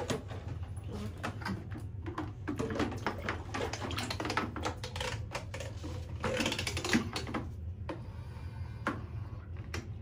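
Water splashing and dripping in a plastic basin as hands move a toy baby doll about in it: a run of quick, irregular clicks and splashes, busiest in the middle.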